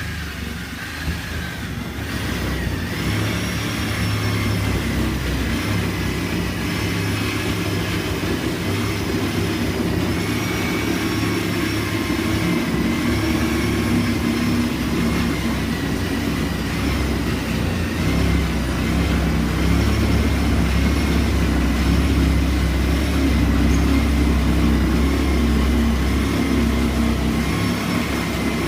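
Sawzall reciprocating saw running continuously while cutting in demolition work. Its motor whine wavers slightly in pitch over the rapid buzzing of the blade strokes.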